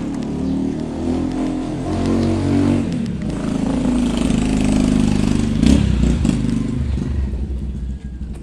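Stroller wheels rolling over rough, grooved concrete: a loud, steady rattling rumble, with one sharp knock about two-thirds of the way through. The rumble eases near the end.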